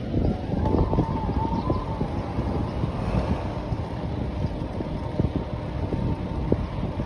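Wind and road noise from a slowly moving car, with wind buffeting the microphone. A faint wavering whistle sounds in the first couple of seconds.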